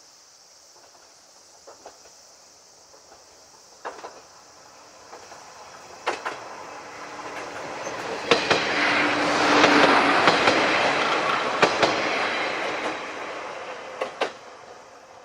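Two-car set of JNR-era diesel railcars, a KiHa 28 and a KiHa 52, approaching and passing close by, swelling to a peak about two-thirds through and then fading, with wheels clacking over rail joints several times. A steady high buzz of insects runs underneath.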